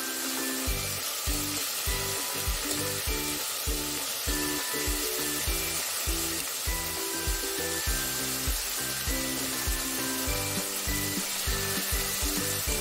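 Chicken sizzling as it fries in a pan for bistek, a steady hiss under background music. The music has plucked notes, and a regular low beat comes in under a second in.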